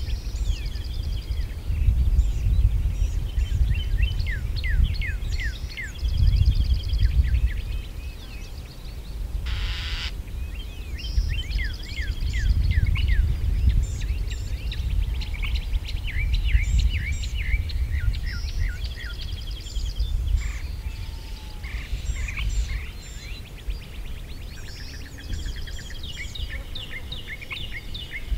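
Several wild birds singing and chirping, with many quick down-slurred chirps and rapid trills, over a low rumble that rises and falls. A short rustling burst about ten seconds in.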